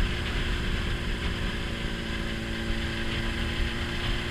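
Honda CBR600RR's inline-four engine running steadily at a cruise, heard muffled, over a low wind and road rumble.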